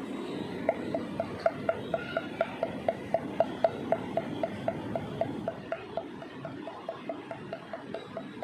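Quick, evenly spaced hollow pops, about five a second and all at the same pitch, from hands patting a conch shell; they grow fainter toward the end. No blast is blown on the conch.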